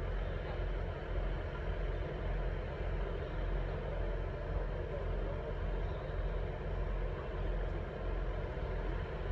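Steady low rumble of an idling engine, with general station background noise.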